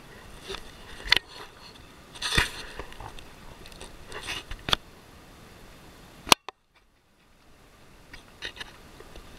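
Handling noise aboard a kayak: scattered sharp knocks and scrapes over a faint hiss of wind and water. About six seconds in there is a loud knock, and then the sound cuts out almost completely for half a second.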